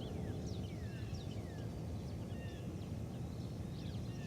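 Small birds chirping, with many short, quick notes, most of them sliding down in pitch, over a steady low background rumble.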